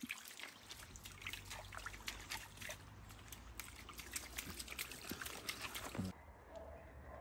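Shallow stream trickling over stones, with a Rottweiler splashing through it and lapping water, making many short wet splashes.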